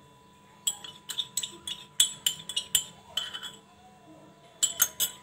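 Spoon clinking against a bowl while an ingredient is measured and added: a quick run of light clinks and taps over about three seconds, then a few more near the end.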